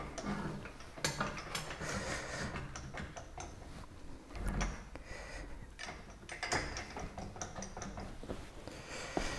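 Scattered light clicks, clinks and small knocks of hands and parts being handled around the sterndrive, with no engine or power tool running.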